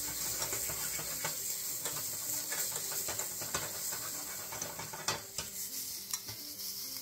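Garlic sizzling in olive oil in a hot pan to cook off its raw flavor, stirred with a utensil that clicks and scrapes against the pan again and again, one sharper knock about five seconds in.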